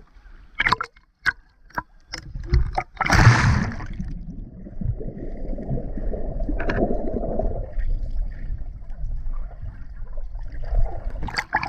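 Seawater washing and gurgling at the shore, with a few sharp knocks in the first two seconds and a loud rush of water about three seconds in.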